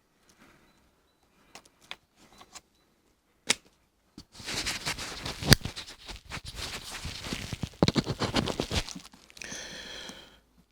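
Rustling and crackling handling noise. A few sharp clicks come first, then from about four seconds in there are roughly five seconds of dense crackling rustle, followed by a softer hiss near the end.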